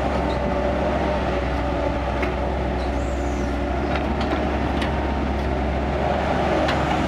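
Kobelco excavator's diesel engine running steadily under load while it digs, with a few faint knocks.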